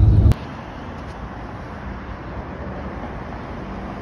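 Heavy low rumble of a bus engine heard from inside the bus, cut off abruptly a moment in, then a steady, quieter hum of road traffic.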